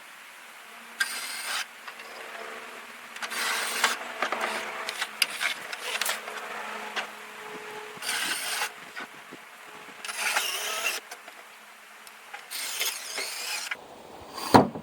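Short bursts of a cordless drill/driver running screws back into the amplifier's sheet-metal case, about five bursts of roughly a second each, with scraping and handling in between.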